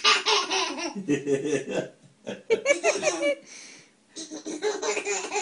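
A baby laughing in about four high-pitched bursts with short pauses between them.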